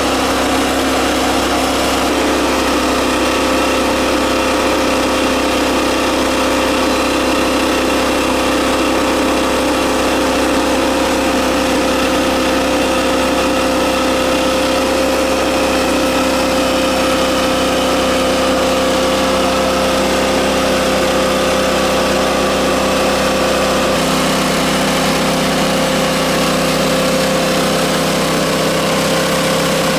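An engine running steadily at a constant speed, with a shift in its low tone about three-quarters of the way through.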